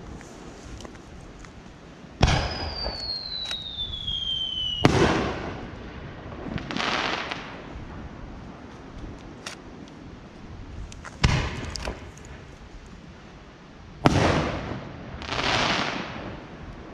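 Aerial fireworks shells bursting. About two seconds in, a sharp report is followed by a whistle that falls steadily in pitch for about two and a half seconds and ends in a loud bang. Two more sharp bangs come later, and rushing, hissing swells follow some of the bursts.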